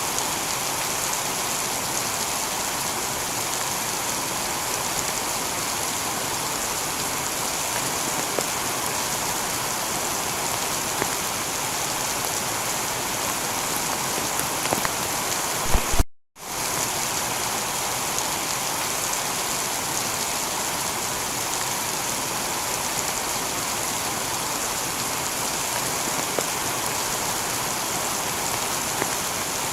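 Steady heavy rain falling on a tiled roof, an even hiss of drops. About halfway through, the sound cuts out completely for a moment and resumes, the splice of a looped recording.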